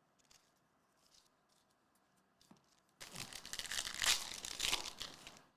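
A 2023-24 Topps Chrome basketball card pack's foil wrapper being torn open and crinkled, starting about three seconds in and lasting a couple of seconds, after a few faint soft taps of cards being handled.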